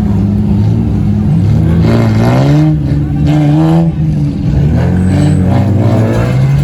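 Car engine revving hard, its pitch rising and falling repeatedly as the throttle is worked.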